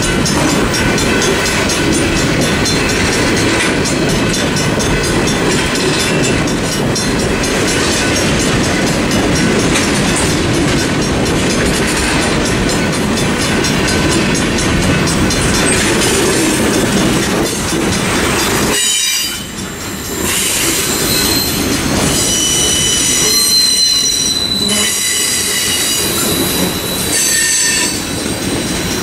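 Cars of a Norfolk Southern mixed freight train rolling steadily past. After a brief dip about two-thirds of the way through, high, ringing wheel squeal sounds over the rumble.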